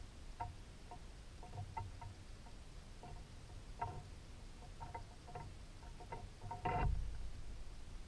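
Woodpecker pecking at seed on a metal hanging feeder: irregular sharp taps with a slight metallic ring, about a dozen over several seconds, and one louder knock near the end.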